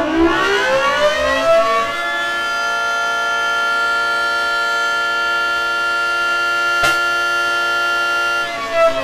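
Civil defense siren winding up in pitch over about the first two seconds, then holding one steady tone, with a short click about seven seconds in; the tone breaks off shortly before the end.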